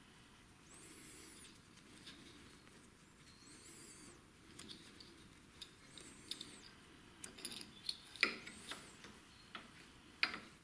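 Faint clicks and light handling noise from a nylon starter pull cord and its plastic grip being worked by hand at the cord guide, with a sharper click or two near the end. A short, high, rising-and-falling chirp repeats about every two and a half seconds.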